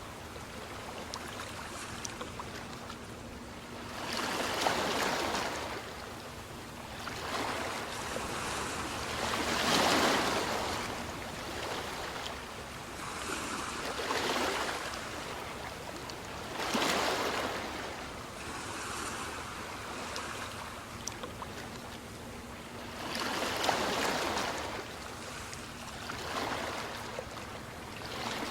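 Ocean waves breaking on a shore, each surge swelling up and washing back down over a second or two, with a new one every few seconds and a steady hiss of surf between.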